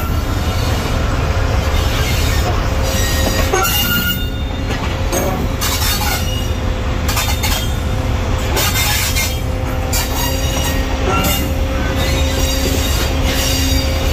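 Pakistan Railways passenger coaches rolling slowly past into the platform. A steady low rumble of the wheels on the rails is joined by a continuous thin wheel squeal and scattered clicks.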